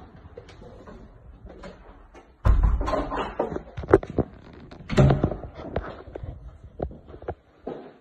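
Knocks and thumps of interior doors being handled, with a heavy bump about two and a half seconds in and another about five seconds in, and scattered lighter clicks between.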